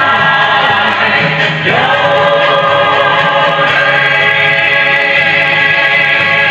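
Song with sung vocals over a bass line, with long held notes from about two seconds in.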